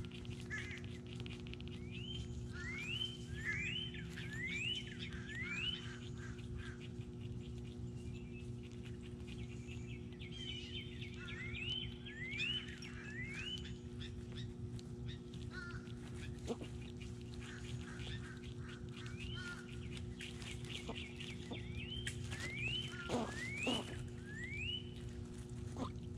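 A songbird whistling clear upslurred notes, each rising sharply in pitch, in runs of four or five about half a second apart, three runs in all, over a steady low hum.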